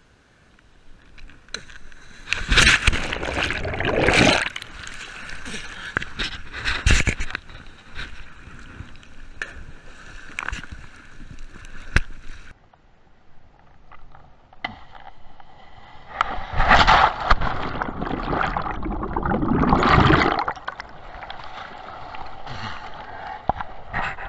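Choppy sea water splashing and sloshing around a camera at the water's surface, in loud irregular surges.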